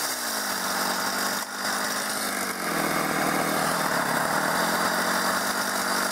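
Stihl MS 230 two-stroke chainsaw idling steadily, its revs falling and settling at the very start.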